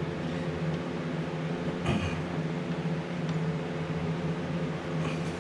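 A steady mechanical hum, with a single click about two seconds in.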